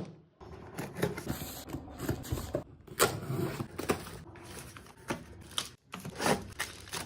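Handling noises from a personal blender's plastic jars and parts: an irregular run of clicks, knocks and rustles, broken by a couple of abrupt cuts to silence. The motor is not running.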